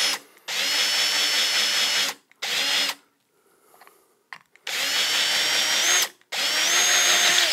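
Electric drill boring a half-inch hole through a plastic jar lid, run in four short bursts with brief stops between. The motor's whine climbs in pitch at the end of the last two bursts.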